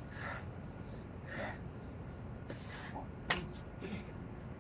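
A man breathing hard during burpees, with three forceful exhalations about a second apart. A single sharp tap comes a little after three seconds in, likely a hand or foot meeting the concrete.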